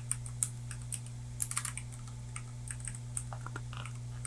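Typing on a computer keyboard: irregular key clicks, in a quick run about one and a half seconds in, over a steady low hum.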